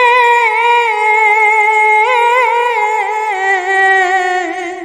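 A single voice singing a Bangla gojol, holding the last syllable of a line as one long note with small wavering ornaments; the pitch drops slightly past the middle and the note fades near the end.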